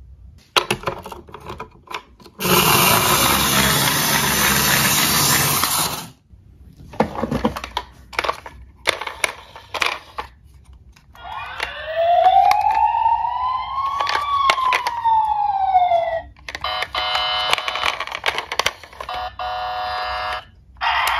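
Electronic sound effects from a battery-powered toy police car. A siren wail rises slowly and falls again over about five seconds, in the middle. Shorter electronic sound effects follow it. Before the siren there is a loud burst of noise lasting about three and a half seconds, along with plastic clicks and knocks from toys being handled in a cardboard box.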